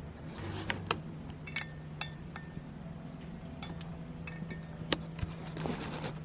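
Scattered small clicks and light metallic clinks of tools and small parts being handled on a workbench, a few of them briefly ringing, over a steady low hum.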